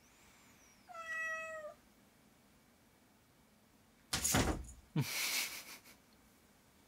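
A cat meows once, a drawn-out call of about a second. About three seconds later come two loud knocks and thumps as the cat leaps against a wardrobe door and drops back to the floor.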